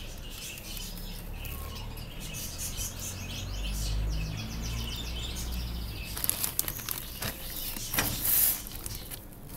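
Small birds chirping in the background over soft handling sounds. From about six seconds in come the loudest sounds, a run of crackling rustles, as the plastic bag of coco-peat potting soil is handled.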